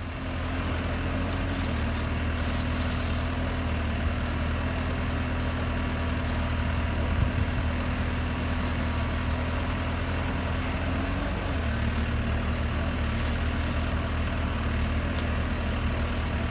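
Heavy diesel engine of a fire truck running steadily with a low rumble and a steady whine over it; the engine note dips briefly about a second and a half in and again around eleven seconds.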